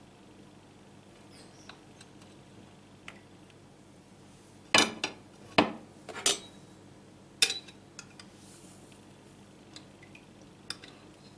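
Metal knife clinking and knocking against a plate while cutting a glazed cake: a handful of sharp, ringing clinks close together about halfway through, with fainter ticks and scrapes before and after.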